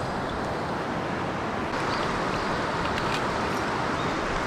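Steady rushing of river current, with a few faint ticks over it.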